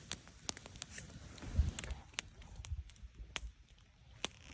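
Wood campfire crackling, with irregular sharp pops and snaps, and a soft low thump about a second and a half in.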